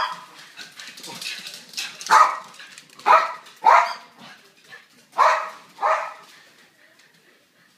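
A pet dog barking in play, about six sharp barks spaced roughly a second apart, with a quieter stretch near the end.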